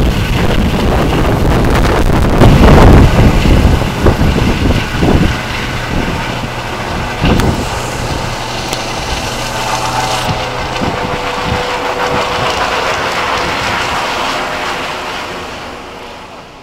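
ADAC Eurocopter EC 135 rescue helicopter climbing away overhead, its rotor and turbines running loud, with wind buffeting the microphone about two to four seconds in. The sound grows fainter and fades out near the end.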